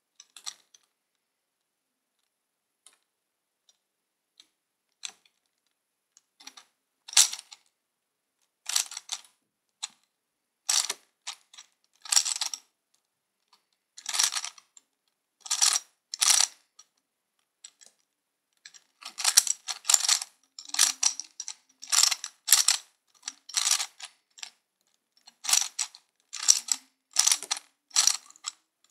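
Plastic Gear Cube puzzle being turned by hand, each turn giving a short burst of rapid clicking from its meshing gears. The turns are sparse and faint at first, come steadily from about seven seconds in, and crowd closer together in the last third.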